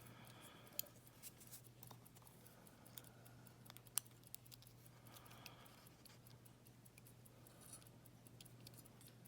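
Faint, scattered small clicks and scrapes from a padlock's core being pushed through while gutting the lock, over a steady low hum. The clearest clicks come about a second in and about four seconds in.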